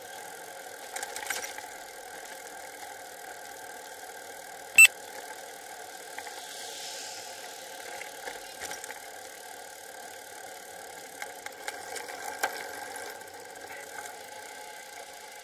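Steady, muffled road and vibration noise from a bicycle-mounted camera while riding on asphalt, with one sharp knock about five seconds in and a few lighter rattling ticks near the end.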